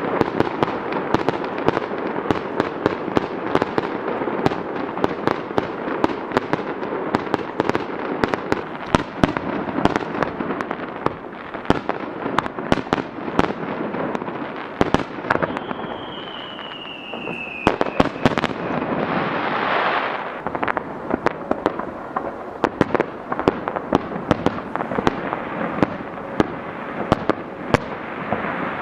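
Aerial fireworks going off in a dense, continuous run of bangs and crackles. About halfway through a whistle slides down in pitch, and a little later a rushing hiss swells and cuts off suddenly.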